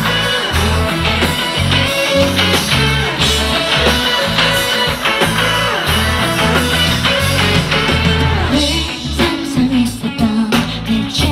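Live pop-rock band playing: drum kit, bass and electric guitar, with a female lead voice singing in the second half.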